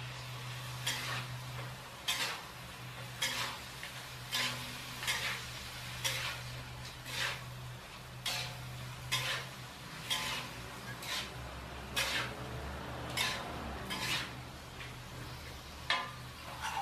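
A metal cooking utensil scraping and knocking against a pan about once a second as food is stirred, over a steady low hum.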